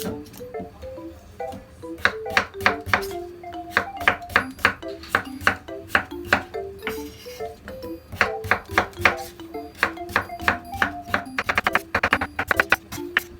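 Kitchen knife chopping on a cutting board in quick, uneven strokes that come in a fast run near the end, over background music with a melody.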